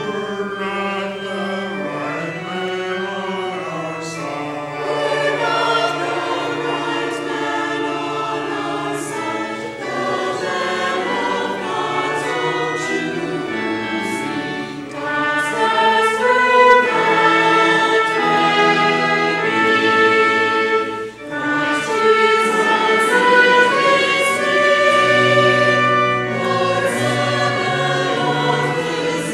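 Mixed church choir of men's and women's voices singing with keyboard accompaniment.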